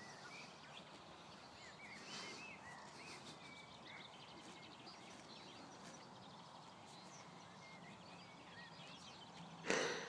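Faint outdoor ambience with small birds chirping and singing throughout, and one sudden loud burst near the end.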